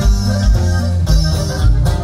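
Norteño band playing: accordion and plucked strings over bass and drums, with a steady beat about twice a second.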